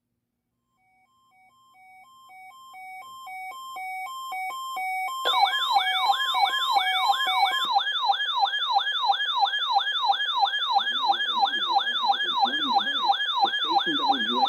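Electronic siren fading in. First comes a two-note hi-lo tone, alternating steadily. About five seconds in, a fast yelp joins it, rising sweeps about three times a second, and the yelp carries on alone after the hi-lo stops a couple of seconds later.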